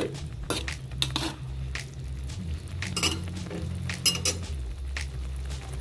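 A metal ladle clinking and scraping against a wok while stirring a wet sauté of sponge gourd and glass noodles. The strikes are sharp and irregular, about one or two a second, with a quick double clink about four seconds in.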